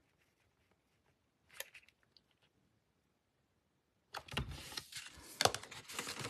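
Paper-crafting supplies handled on a desk: a brief faint rustle about a second and a half in, then from about four seconds a steady run of paper rustling with sharp clicks and taps.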